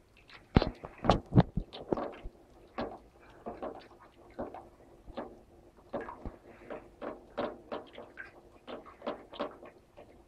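Béchamel sauce being stirred in a pot over low heat to keep it from going lumpy: the utensil scrapes and knocks against the pot in irregular strokes, about two or three a second, with a few louder knocks in the first second and a half.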